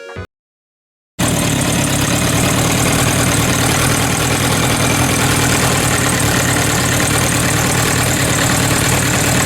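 Kawasaki GPZ900R Ninja inline-four engine idling steadily, cutting in abruptly about a second in. It is running just after its stock cam chain tensioner was adjusted to cure a clattering cam chain noise.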